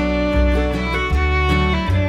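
Music: a fiddle melody over guitar and a steady bass line.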